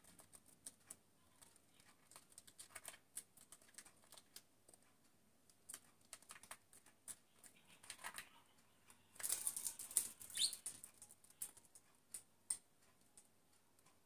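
A budgerigar moving about, with scattered light clicks and taps. A flurry of wing flaps comes about nine seconds in, and a short rising chirp just after it.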